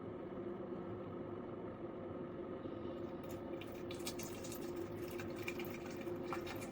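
Ninja Pod & Grounds single-serve coffee maker brewing a pod: a quiet, steady hum from the machine, with hot coffee trickling and dripping into the cup from about three seconds in.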